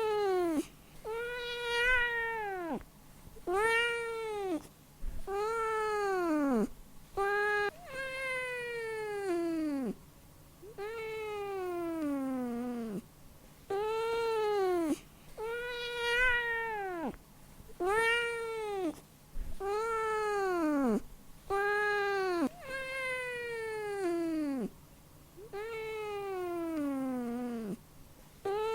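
Domestic cat meowing over and over, a new meow every one to two seconds. Each meow rises briefly and then falls in pitch, and some are drawn out longer than others.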